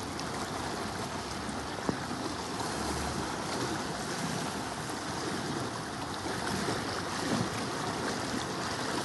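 Steady rushing noise of flowing floodwater, with wind on the microphone.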